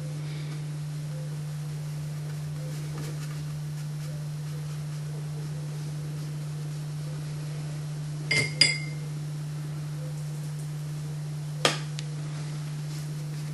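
A steady low hum, with two quick ringing clinks of a paintbrush against the palette about eight seconds in and one sharper tap near the end.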